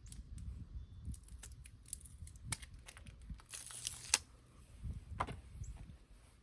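Tire plug repair tools and plug strips being handled: scattered small clicks, a short rustling, crinkling scrape about three and a half seconds in that ends in a sharp click, and another click near five seconds.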